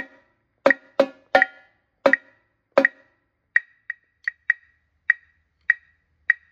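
Marching tenor drums struck with sticks in single, separate strokes, six in the first three seconds, then a string of lighter, thinner clicks about every half second.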